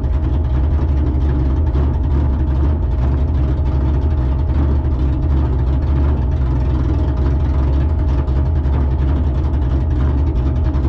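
A vehicle engine running steadily with a deep, even rumble and no change in pitch.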